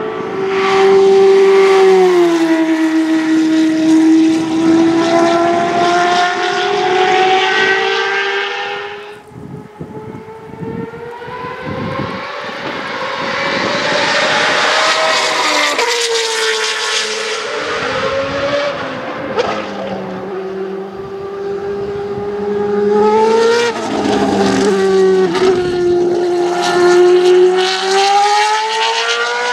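Dallara GP2/05's V8 racing engine running hard at high revs, its pitch climbing and falling repeatedly with gear changes and lifts. The sound drops away sharply about a third of the way in, then builds back up.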